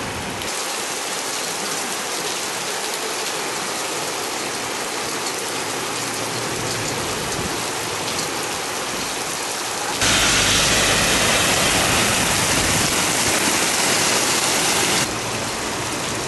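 Heavy rain pouring onto wet pavement, a steady hiss. About ten seconds in it turns much louder and fuller for some five seconds, then drops back.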